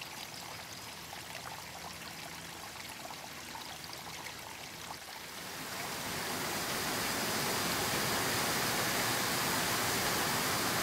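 Steady rush of a stream's running water, growing louder about six seconds in.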